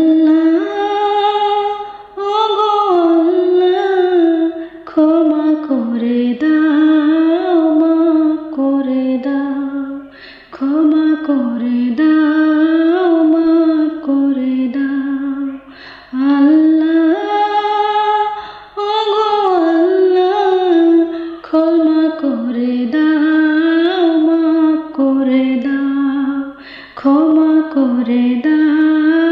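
A woman's solo voice singing a Bengali nasheed (Islamic devotional song) in flowing, gliding phrases a few seconds long, with short breaks for breath between them.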